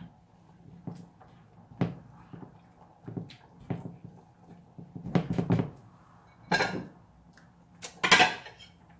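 Silicone spatula stirring thick meat sauce in a saucepan, with scattered knocks and scrapes against the pan. The louder clatters come about six and a half and eight seconds in.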